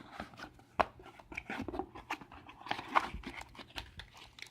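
A small product box and its packaging being handled and opened: rustling and crinkling with scattered clicks and taps, and two sharper knocks, one about a second in and another near three seconds.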